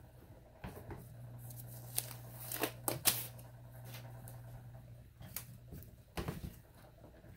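Light clicks and taps of wooden popsicle sticks and craft supplies being handled and set down on a foil-lined tray, over a faint steady low hum for a few seconds in the middle.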